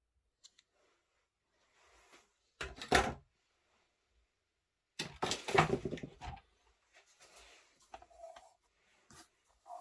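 Handling noise of objects on a table: soft rustling and a few clicks, with a short clatter of knocks about three seconds in and a longer one about five seconds in.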